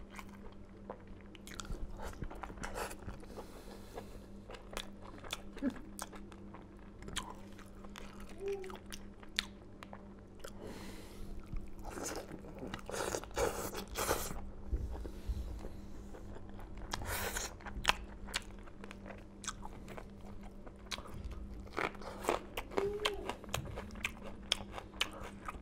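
A person biting into and chewing fried chicken leg pieces, with irregular crunching and clicking eating sounds over a faint steady hum.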